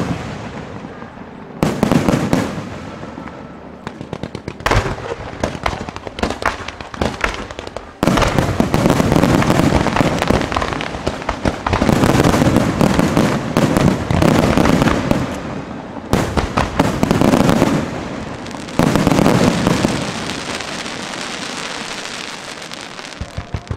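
Aerial fireworks bursting: a loud bang every few seconds, each followed by several seconds of dense crackling. A quick run of pops starts near the end.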